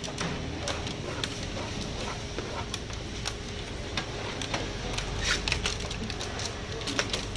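Kitchen knife cutting fruit on a plastic cutting board: irregular sharp taps and knocks of the blade on the board, with a few quick clusters of clicks as pieces are handled, over steady background stall noise.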